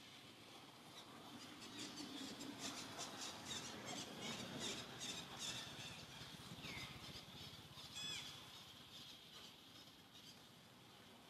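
Faint rustling and a patter of quick clicks, then a short falling chirp and, about eight seconds in, a brief high-pitched animal squeak.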